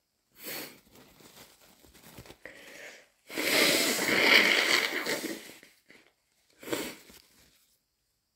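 A person with a stuffy, snotty nose sniffling and blowing it: a short sniff, a little tissue rustling, then one long nose blow of about two and a half seconds, and another short sniff near the end.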